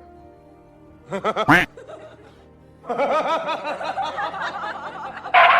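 A voice laughing in quick, repeated giggles over background music, with a short rising burst about a second in.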